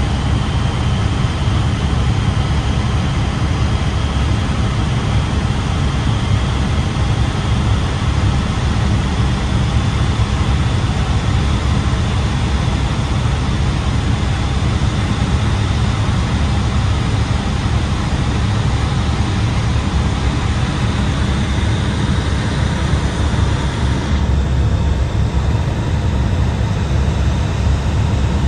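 Steady cabin drone of a small aircraft in flight, heard from inside the cockpit: engine and airflow noise, heaviest in the low rumble. The hiss on top turns duller a few seconds before the end.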